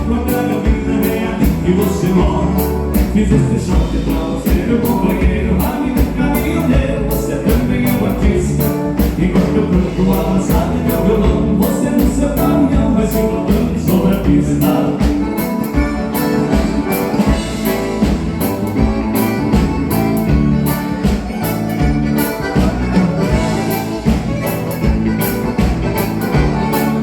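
A band playing a xote, the southern Brazilian gaúcho dance rhythm, with a singer and a steady drum beat.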